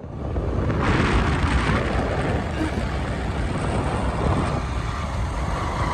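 Wind rushing over the microphone of a moving motorcycle, over a low rumble of road and engine noise, growing louder about a second in as the bike picks up speed.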